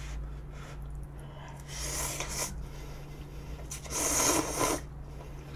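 A person slurping noodles loudly from a bowl, twice: a slurp about two seconds in and a longer, louder one about four seconds in.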